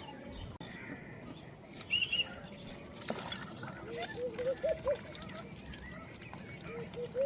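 Ducks dabbling and foraging in shallow water, a steady wet muttering of bills in the water. Bird calls sound over it: a quick phrase of five or six short low notes about four seconds in and again at the end, and a few brief higher chirps about two seconds in.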